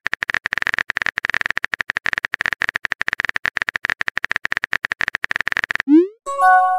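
Keyboard typing sound effect, a rapid steady run of clicks, stopping about six seconds in. It is followed by a short rising 'bloop' as a message is sent and a brief chiming notification tone near the end.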